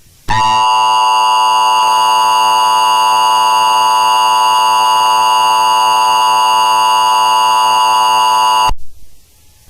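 Emergency Alert System attention signal: a loud, steady two-tone alarm that starts just after the opening and cuts off abruptly about nine seconds in. It announces an alert, here a required monthly test.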